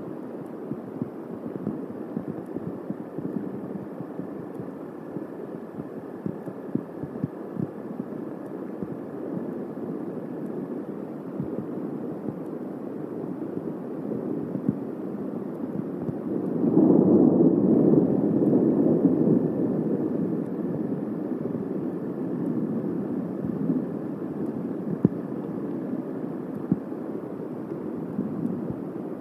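Thunderstorm on an outdoor microphone: a steady low rush of rain and wind with scattered small ticks, and a louder roll of thunder a little past halfway that swells suddenly and fades over a few seconds.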